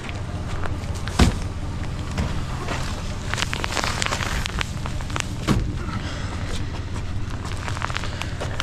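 An engine idling steadily, with knocks and clatter of gear being handled and unloaded over it; the loudest knocks come about a second in and again about five seconds in.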